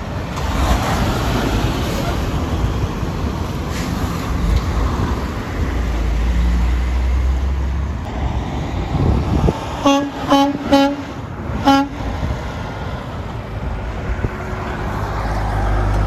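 Semi trucks driving past with engine and road noise, then a horn sounding four short toots in quick succession about ten seconds in.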